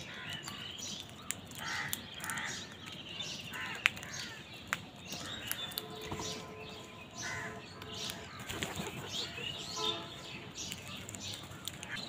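House crows cawing several times as they squabble over scattered grain, with thin higher chirps from smaller birds and a few sharp clicks.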